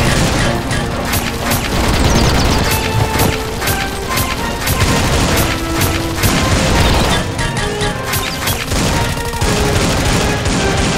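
Action background music with frequent sharp, shot-like sound effects laid over it for toy blasters being fired.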